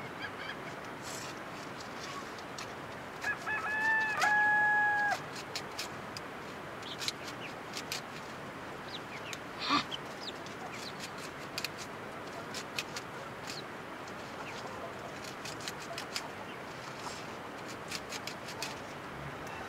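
A rooster crows once, a held call of about two seconds that comes a few seconds in. Scattered light clicks and taps are heard throughout.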